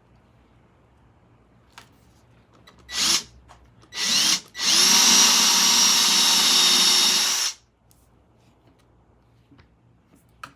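Power drill boring holes for threaded inserts: two short bursts about three and four seconds in, then a steady run of about three seconds that rises in pitch as it spins up.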